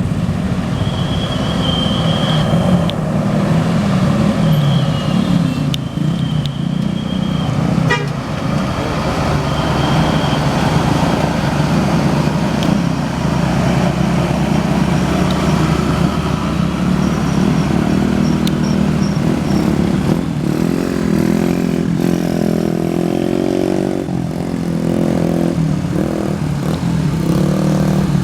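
Tour bus running with its multi-tone 'telolet' horn playing a wavering, tune-like sequence of notes over the engine rumble, most prominent in the last third.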